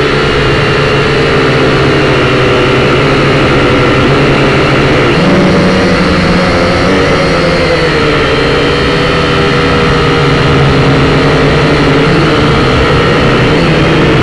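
Syma X5C quadcopter's four small brushed motors and propellers whining loudly in flight, picked up by the drone's own camera. Several tones run together and waver, stepping up in pitch about five seconds in as the throttle changes.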